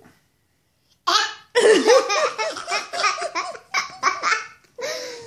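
A toddler laughing hard in a long run of quick, high-pitched bursts, beginning about a second in after a short quiet.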